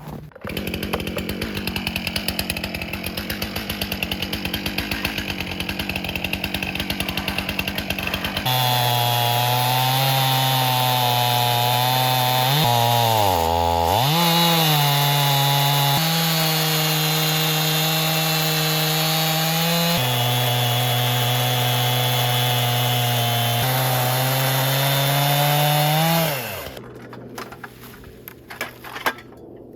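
Two-stroke chainsaw on an Alaskan chainsaw mill, first running with a fast rattling pulse, then about eight seconds in opening up to a loud steady full-throttle note as it cuts along a log. The note sags and recovers briefly near the middle, then falls away as the throttle is released near the end.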